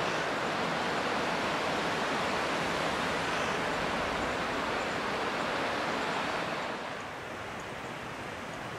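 Steady rushing roar of the fast, silt-laden Fraser River's current. About seven seconds in it drops to a quieter, softer rush.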